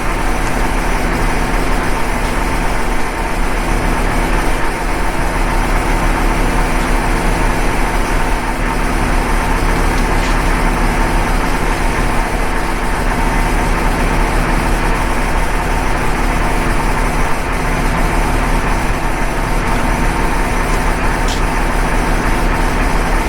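Steady, unchanging mechanical drone with a low hum underneath.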